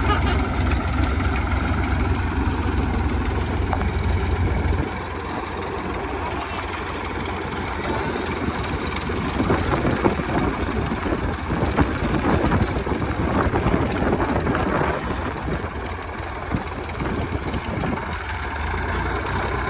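Tractor diesel engine idling with a steady low rumble that drops about five seconds in, and irregular knocks and clatter in the middle.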